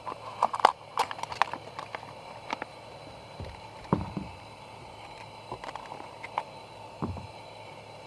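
Grape tomatoes being set down on a plastic serving tray: a quick run of light clicks and taps in the first second and a half, then a few soft thuds around four seconds in and again near seven seconds.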